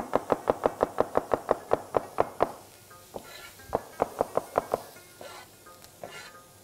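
Large chef's knife chopping a carrot on a cutting board: rapid, even knocks about six a second that stop about two and a half seconds in, then a few slower chops around four seconds in.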